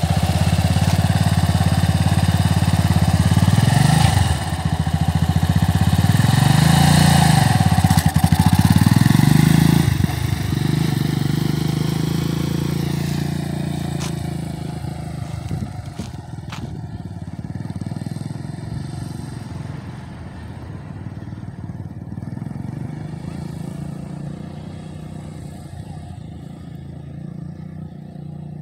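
Yamaha dirt bike engine revving up and down twice close by, then pulling away about ten seconds in and fading steadily as the bike rides off into the distance.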